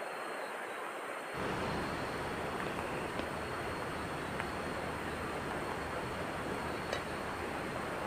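Steady rushing of a river, growing fuller and a little louder about a second in, with a few faint clicks of a plastic rice paddle against a metal rice pot.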